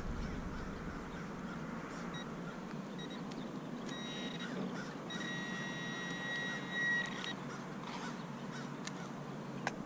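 Metal detector giving a few short high beeps, then a steady electronic tone lasting about two seconds, sounding over a target as it is dug out with a hand digger.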